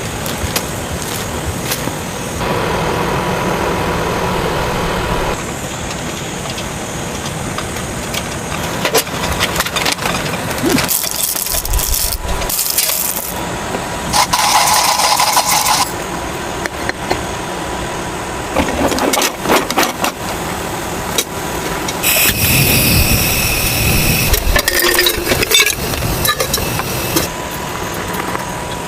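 Heavy rain falling steadily, with scattered knocks and clatter of things being handled, and several louder stretches of rustling and scraping.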